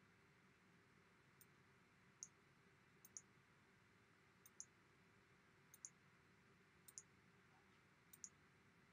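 Faint, sharp keystroke clicks, mostly in close pairs, about one pair a second: slow typing on a MacBook keyboard.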